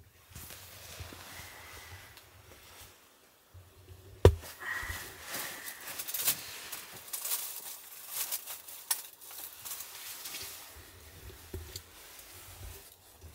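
Fabric rustling and scratchy handling noises from bedding being moved, with a single sharp knock about four seconds in.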